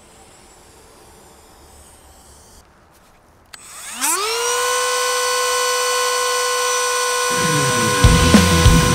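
Handheld rotary tool switched on with a click about three and a half seconds in, its motor whine rising quickly and settling at a steady high pitch. Near the end it starts routing a slot into the pipe, adding a rough, uneven grinding noise under the whine.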